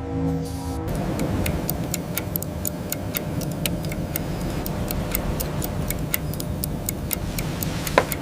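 Rapid, regular ticking, about four or five sharp clicks a second, over a steady mechanical rumble, with one louder click near the end. Background music with steady tones plays for about the first second, then stops.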